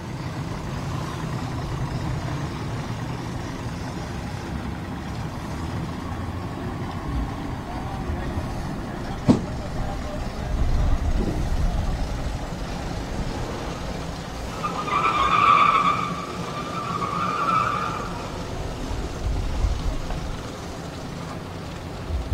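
Steady low engine rumble, as of motors idling nearby. A single sharp click comes about nine seconds in, and a high, pitched sound in two parts rises over it for about three seconds near the three-quarter mark.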